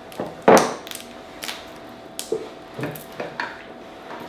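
Cooked Dungeness crab shell being cracked and pulled apart by hand: a series of short sharp cracks and snaps, the loudest about half a second in.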